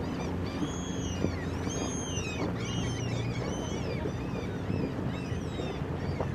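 A sailboat motoring with its sails down: a steady low engine hum under water and wind noise. Over the middle of the stretch, birds give a string of short, high calls that rise and fall in pitch.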